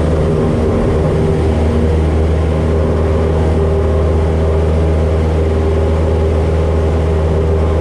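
Cessna 172's piston engine and propeller at full takeoff power during the takeoff roll, a loud, steady drone heard from inside the cabin.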